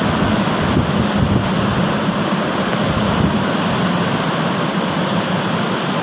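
Windstorm with heavy rain: a loud, steady rush of wind through trees, with the wind buffeting the microphone.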